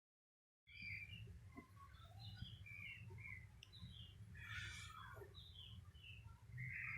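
Faint chirping of birds, many short calls scattered over a low steady hum, starting just under a second in after dead silence.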